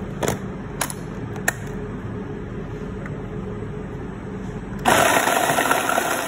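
A few light clicks, then about five seconds in a Ninja blender's motor starts and runs at full speed, its blades chopping Ritz crackers, fried chicken and biscuit into crumbs.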